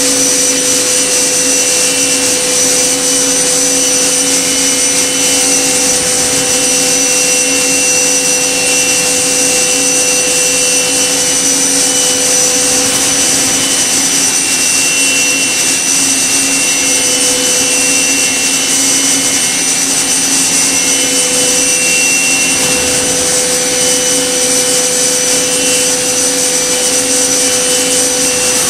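Okuma MB-5000HII horizontal machining center running a cut: the spindle turns at speed as the tool feeds into a metal part, a loud, even hiss with several steady high whining tones, some of which come and go.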